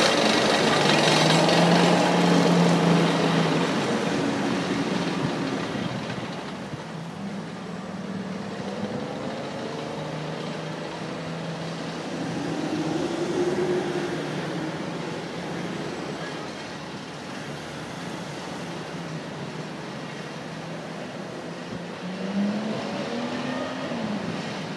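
Military G-Wagon utility vehicles driving past close by, their engines loudest at first and fading away over the first few seconds. Then steady street traffic, with a passing vehicle's engine rising and falling in pitch in the middle and again near the end.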